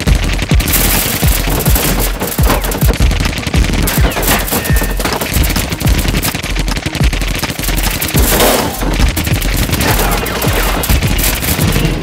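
Rapid, sustained gunfire from a film sound design, shot after shot without pause, over music. It grows louder about eight seconds in, along with a burst of hits.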